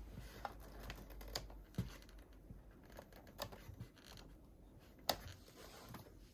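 Scattered clicks and light knocks at irregular intervals, the sharpest about five seconds in, with a dull low knock near two seconds.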